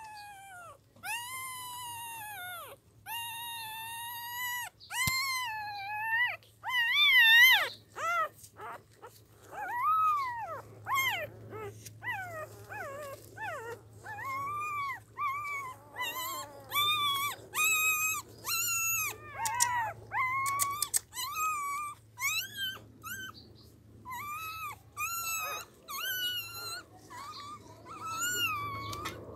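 Newborn puppies with their eyes not yet open, whining over and over: short high-pitched cries that rise and fall, one after another and sometimes several at once.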